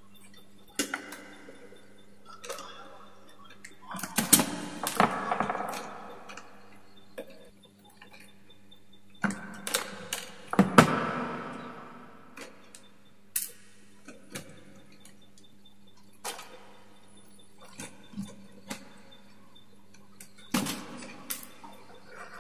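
Hands working stiff electrical wire with pliers: scattered sharp clicks and taps, with two longer stretches of rustling and scraping as the wires are twisted together and pushed into a plastic junction box.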